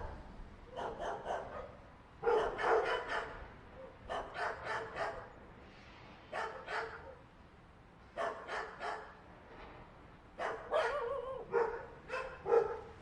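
Dog barking in quick runs of three or four barks, with pauses of about a second between runs; a longer run of barks comes near the end.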